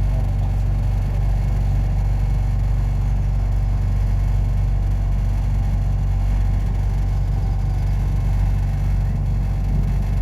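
Blackpool English Electric boat car tram running steadily along the track: a continuous low rumble of wheels and running gear with a faint steady whine above it.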